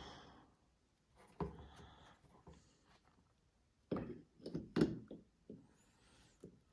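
Scattered soft knocks and clicks of dryer parts being handled and fitted during a control-board repair, with a cluster of knocks about four to five seconds in.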